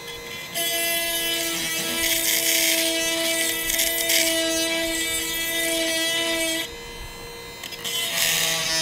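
Oregon SureSharp 12-volt electric chain grinder running, its 5/32-inch stone grinding a steel saw-chain cutter: a steady whine with a gritty high hiss. The grinding stops a little past six seconds, leaving the motor's quieter hum, and starts again near the end.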